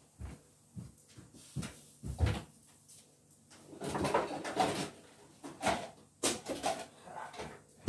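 Kitchen cupboards and drawers being opened and shut, with scattered knocks and clatter of rummaging, the loudest knock at the very end.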